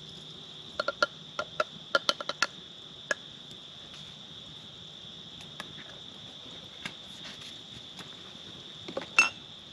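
Spoon clinking against a metal camp cup while making coffee: a quick run of light clinks in the first few seconds, a few stray ones later, and one louder ringing clink near the end. Crickets chirr steadily behind.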